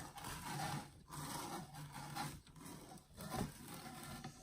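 Scraping, rubbing handling noise in short stretches, like an adhesive Chalk Couture silk-screen transfer being peeled off and handled.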